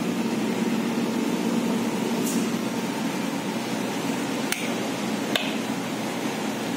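Two sharp clicks of a wall light switch about a second apart, flicked off and straight back on to step an LED panel's 3-step dimming driver from its lowest step back to full brightness, over a steady background hum.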